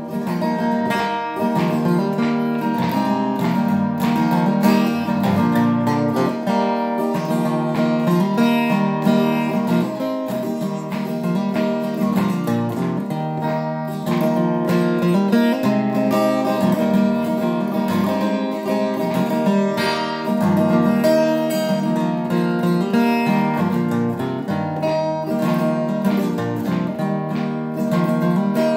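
Steel-string acoustic guitar strummed in a steady rhythm: an instrumental break between verses, with no singing.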